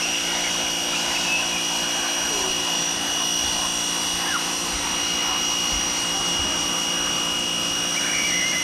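Pressure washer running steadily: a constant machine drone with a high whine over a broad hiss.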